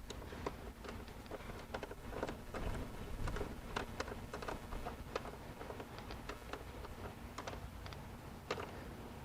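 Irregular clicks and light knocks of a hand tool and small metal parts as nuts are put back on a hood release handle's mounting studs, in small clusters of two or three a second.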